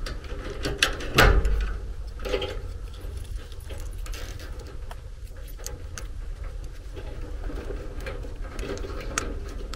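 Hands handling and twisting furnace wiring: rustling and scattered small clicks of the wires, with one louder knock about a second in. A steady low hum runs underneath.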